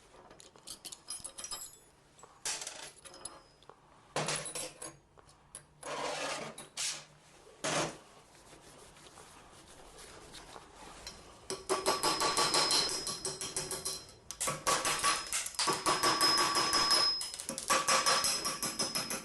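Metal parts and hand tools clinking and clanking, scattered at first. From about halfway through it becomes a dense, rapid metallic rattling with a ringing note.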